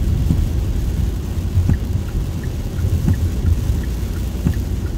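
Inside a car's cabin driving in heavy rain: a steady low rumble of tyres on the wet road, with rain ticking on the windshield and a soft knock about every second and a half from the wipers.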